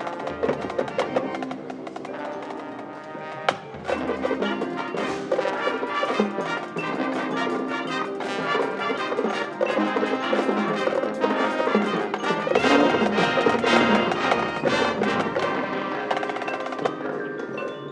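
High school marching band playing its competition show: brass ensemble of trumpets and trombones over front-ensemble and drumline percussion, with sharp wood-block and drum strokes. The full band swells up at about four seconds and again near two-thirds through.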